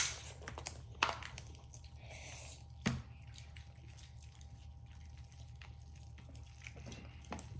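Crab-leg shells being cracked and picked open: three sharp snaps, one right at the start, one about a second in and one about three seconds in, with faint wet squishing between them over a low steady hum.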